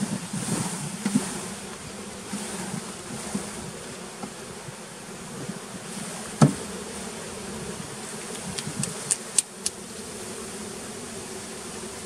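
Honey bees humming steadily around an open hive. About halfway through there is one sharp wooden knock as a frame is lifted out of the box, followed by a few light clicks.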